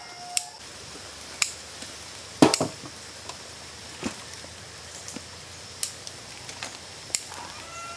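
Scissors cutting through spiny lobster shells: a scatter of sharp, irregular snaps and cracks, the loudest about two and a half seconds in. A faint steady high-pitched drone runs underneath.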